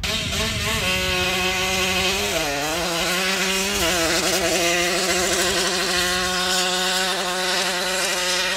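Vintage moped's small two-stroke engine running hard at high revs, a steady buzz. Its pitch dips briefly about two and a half seconds in, then picks up again and holds.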